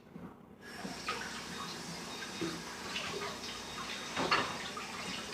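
Tap running steadily into a sink, starting about half a second in, with a few light knocks and clatters; one short knock about four seconds in is the loudest.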